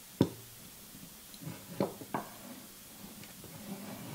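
A few light knocks and clicks as the stainless-steel lever arm and piston assembly of an Odyssey Argos lever espresso machine are handled while a screw is fitted: a sharp knock just after the start, two more in quick succession around the middle, and another near the end.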